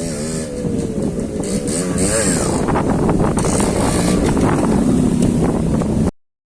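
Yamaha RX 135's single-cylinder two-stroke engine being ridden and revved, its pitch rising and falling with the throttle. It gets louder about a second in and cuts off suddenly near the end.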